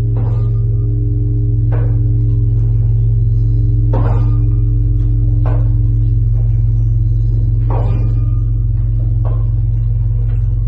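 Huge Russian church bell, the Lavra's Tsar Bell, ringing as its swung clapper strikes about every two seconds, every other strike louder, over a loud, sustained deep hum.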